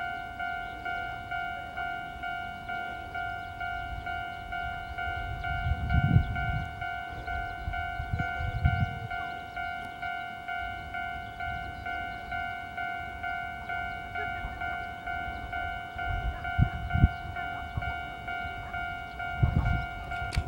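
Railway level-crossing alarm ringing, a steady clanging tone repeating about twice a second. A diesel railcar approaches underneath it, with low rumbles swelling up a few times.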